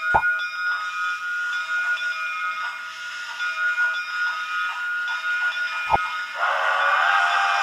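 Sound decoder of an HO scale CPR D10 4-6-0 model steam locomotive playing its steam sounds through the model's small speaker: a steady chuffing beat with two sharp knocks, then the steam whistle blowing from about six seconds in.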